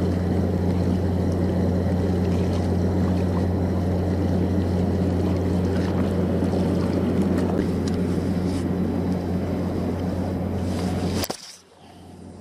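A steady, low motor drone, like a boat engine running, holds unchanged and then cuts off abruptly about a second before the end.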